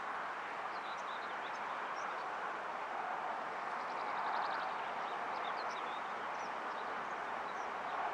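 VR Sr2 electric locomotive and its coaches approaching at speed: a steady rolling hum that grows slightly louder about halfway through. Small birds chirp over it, with a quick trill about four seconds in.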